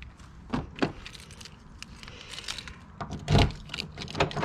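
Car keys jangling, with a couple of sharp clicks, then a heavy thump a little over three seconds in.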